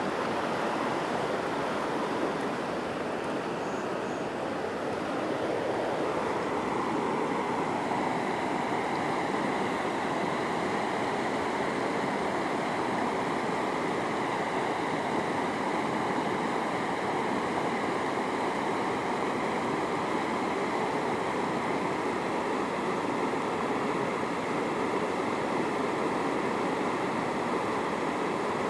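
Shallow rocky river running over stones in small rapids: a steady rush of water.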